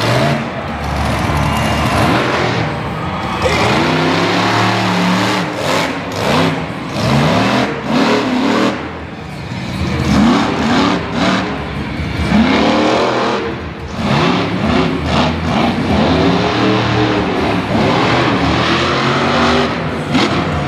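Monster truck engine revving hard, its pitch climbing and falling again and again as the truck charges around the dirt arena.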